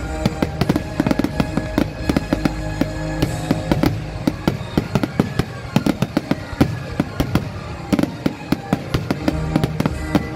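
Fireworks going off in a rapid string of sharp bangs and crackles, several a second, over music.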